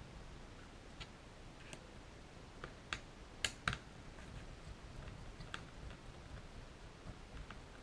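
Scattered light clicks and taps of tools and parts being handled while an airsoft Tri-Shot shotgun is taken apart, with a sharper pair of clicks about three and a half seconds in.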